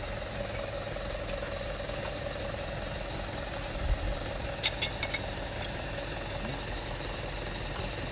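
Small engine of an Iseki riding management machine running steadily at idle. A quick run of three or four sharp clicks comes a little past halfway.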